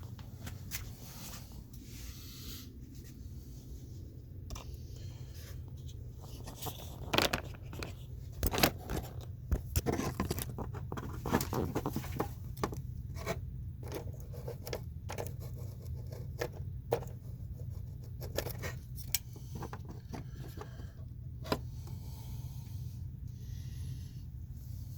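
Scattered light clicks, taps and short scrapes of small 1/64 scale toy cars rolling on and being handled around a styrofoam track, loudest in a cluster a third of the way in, over a steady low hum.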